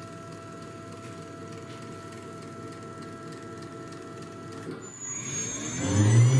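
CNC router spindle motor spinning up: after a few seconds of faint steady hum, a rising whine starts about five seconds in and grows loud near the end as the spindle comes up to speed for the finishing cut.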